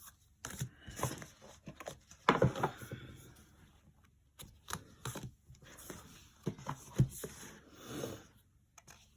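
Scattered clicks, taps and rustles of an album's cardboard and paper packaging being handled and opened, with sharper knocks about two and a half seconds in and about seven seconds in.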